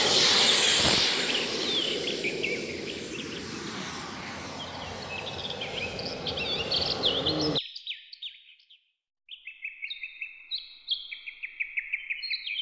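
Rushing noise of a radio-controlled model jet, loudest at first, easing, then cut off abruptly about seven and a half seconds in. Quick high bird chirps and trills run through it and carry on alone after the cut.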